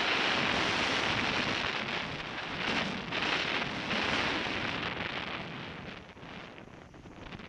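Airflow rushing over the microphone of a camera mounted on a hang glider in flight: a steady noisy rush that surges and eases, dropping noticeably about six seconds in.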